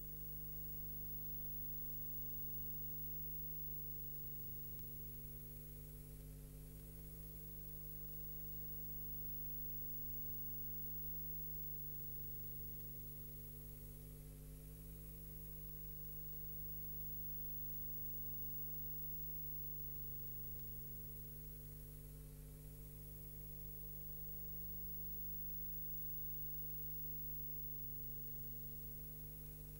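Steady low electrical hum made of several fixed tones, with a faint high hiss over it and nothing else.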